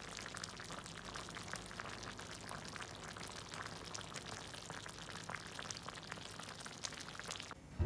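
Tofu in gravy bubbling and sizzling in a hot clay pot: a steady crackle of many tiny pops that cuts off just before the end.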